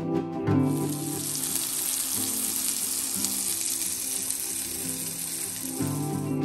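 Ground sausage sizzling in a cast-iron skillet. The frying starts about half a second in and stops shortly before the end, with soft background music beneath it.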